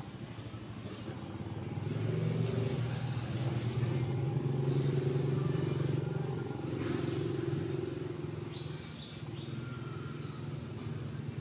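A road vehicle's engine running steadily, growing louder about two seconds in and fading again after about eight seconds.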